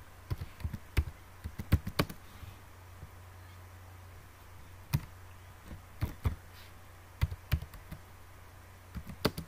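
Computer keyboard keystrokes: a quick run of key clicks in the first two seconds, then scattered keypresses and short runs separated by pauses. A faint low hum lies underneath.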